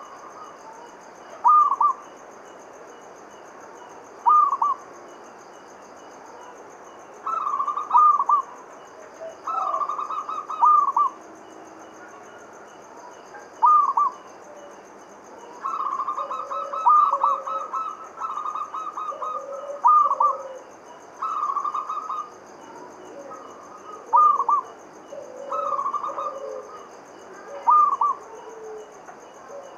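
Zebra dove (perkutut) cooing: short, soft rolling coo phrases repeated every couple of seconds, some drawn out into longer runs of coos. Lower-pitched coo notes join from about halfway through, over a faint steady high whine.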